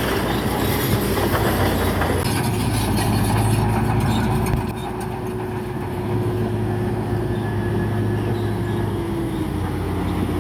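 Crawler bulldozer's diesel engine running with its steel tracks clanking and squealing. The clatter thins after about two seconds, leaving a steady whine that drops slightly in pitch near the end.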